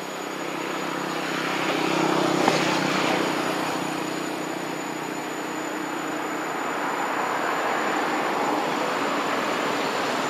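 An engine passing by: a steady motor hum that swells to its loudest about two seconds in and then fades, with one sharp click in the middle.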